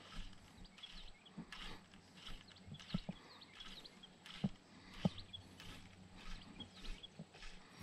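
Faint outdoor ambience: short high chirps recurring every second or so, with a few soft knocks about three, four and a half, and five seconds in.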